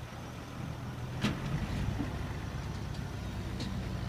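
Six-wheel dump truck's diesel engine running steadily as the tipper body comes down and the truck pulls away, with a sharp knock about a second in and a lighter one near the end as the body and tailgate settle.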